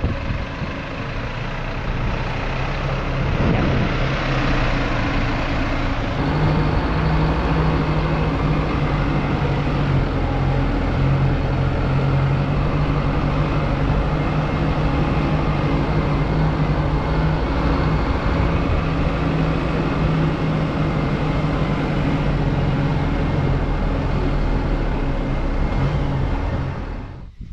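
Isuzu NPS 4x4 truck's diesel engine running steadily as the truck drives along a sand track, a constant low drone that grows louder about six seconds in.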